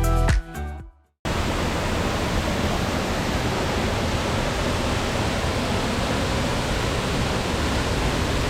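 Background music cuts off about a second in, then the steady roar of a large waterfall, Inambakan Falls, pouring down in tiers.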